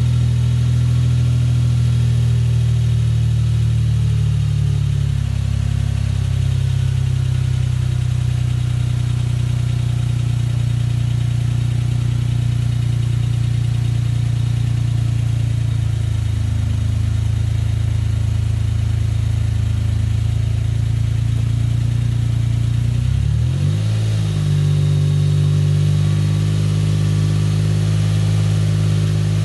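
Exhaust note of a Suzuki Jimny JB23's 660 cc turbocharged three-cylinder engine through a K-Products Excel II aftermarket muffler built to meet the new noise regulations, idling steadily. Late on the engine speed briefly dips and picks up, then holds a slightly higher steady idle.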